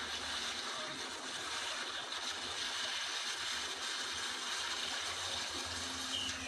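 Steady rush of sea water washing and splashing over shore rocks.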